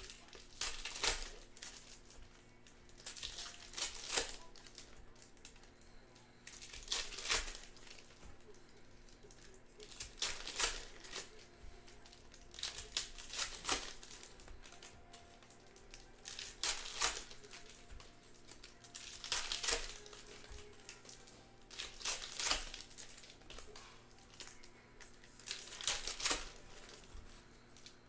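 Trading card packs being torn open by hand, their plastic wrappers crinkling and tearing in short rustles every few seconds, about nine times.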